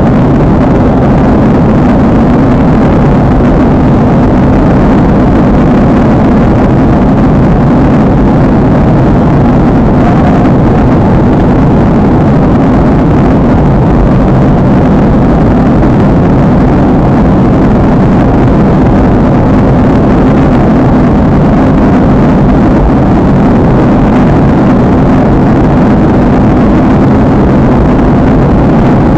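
Steady, loud cabin noise of a jet airliner, a constant rush of engines and airflow with no change in pitch.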